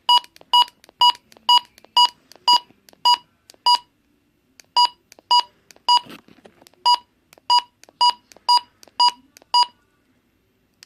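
Button-press beeps of an HH54VP portable weather alert radio as its setup buttons are pressed: a run of short, identical, loud beeps about two a second, with a brief pause about four seconds in.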